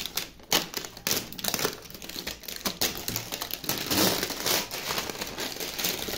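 Clear plastic shrink-wrap crinkling and tearing in irregular crackles as it is peeled off a cardboard box, loudest about four seconds in.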